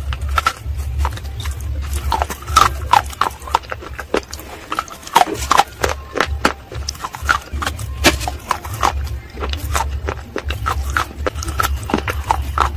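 Close-miked chewing and crunching of baked clay pot and slate pieces coated in wet clay paste: a rapid, uneven run of sharp crunches and wet mouth clicks over a steady low hum.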